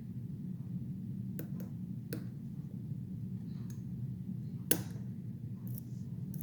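Sharp metallic clicks of a lock pick working the pins of a Bilock-clone lock, about five spread out, the loudest a little under five seconds in, over a steady low hum.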